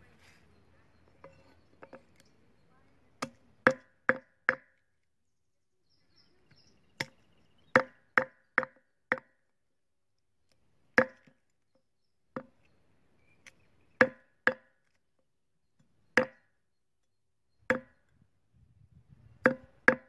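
A long knife chopping dressed quail, meat and small bones, on a small wooden chopping board: sharp single chops in irregular clusters of two to five, with pauses of a second or two between clusters.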